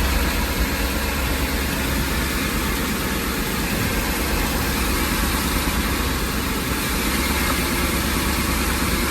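Ford E-350 van engine idling steadily, with a strong low rumble. The engine is shaking, yet no misfire code is set.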